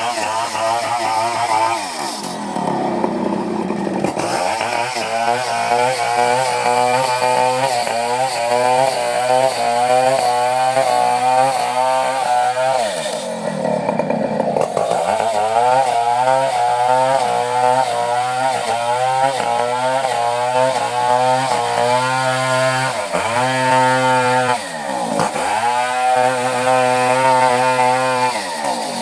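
Two-stroke chainsaw running at high revs while cutting coconut wood, its pitch wavering under load. Several times the engine drops sharply in pitch and revs back up.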